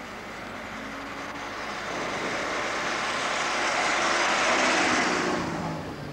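A car drives past close by. Its tyre and engine noise builds as it approaches, is loudest as it goes by, and then fades, with the engine note dropping in pitch.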